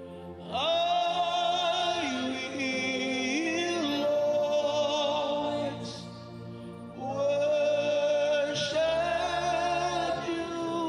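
Worship music: a voice sings two long, wordless phrases with vibrato and sliding pitch over a steady, sustained low accompaniment. The first phrase runs for about five seconds, and the second starts about seven seconds in.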